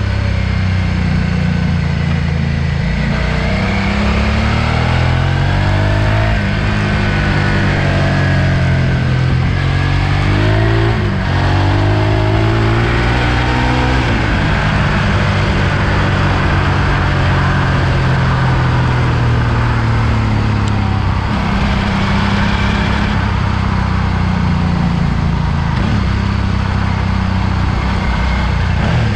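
Suzuki V-Strom 650's V-twin engine running under way on a gravel road, its revs rising and dropping several times as the rider accelerates and shifts gear, with steady wind and tyre hiss.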